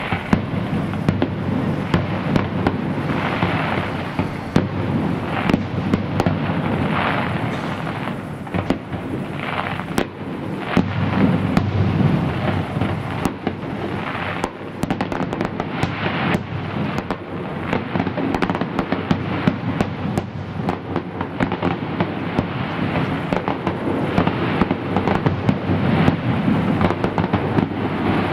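Fireworks display: a continuous run of bangs and crackles over a low rumble, with a stretch of rapid crackling about halfway through.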